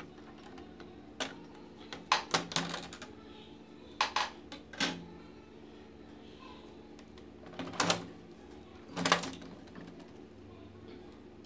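Sharp plastic clicks and knocks, about eight at irregular intervals, as an HP LaserJet colour printer's plastic covers and its transfer belt assembly are handled against the chassis, over a faint steady hum.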